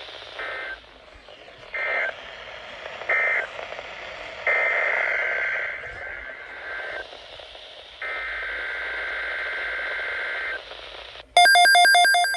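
Emergency Alert System digital data tones: three short buzzing end-of-message bursts about a second apart, then two longer header bursts for the next alert, and near the end a much louder third burst begins. A faint hiss lies under the bursts.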